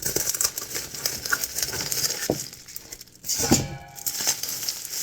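Packaging rustling and rattling as a subscription box is dug through, with a few light knocks and a brief squeak about three and a half seconds in.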